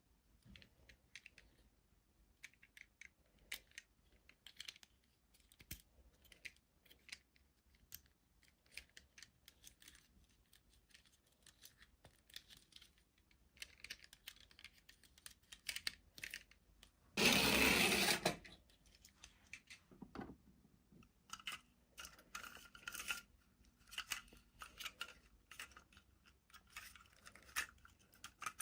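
Toy packaging and plastic toys being handled: scattered light clicks, taps and rustles, with one loud burst of rustling about a second long a little past halfway, and denser crinkling near the end.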